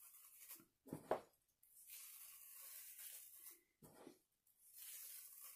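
Near silence, with faint rustling from fingers sprinkling salt onto a wet painted canvas and a couple of soft, brief handling sounds.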